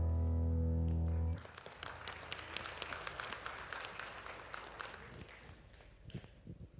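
A worship band's final held chord, which cuts off about a second and a half in, followed by the congregation applauding, the clapping fading away over the next few seconds.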